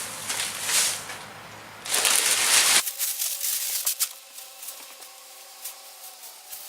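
Dry coop bedding rustling in bursts as it is spread out, cutting off sharply about three seconds in. Light scattered clicks and crackles follow.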